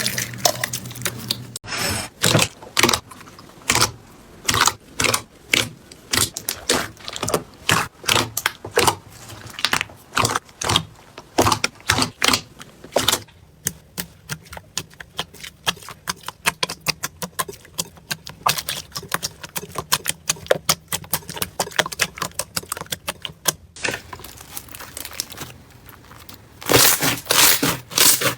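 Slime being squished and poked by hand, making rapid sticky clicks and crackling pops. It comes as several short clips with abrupt changes. In the middle stretch the clicking is fast and even.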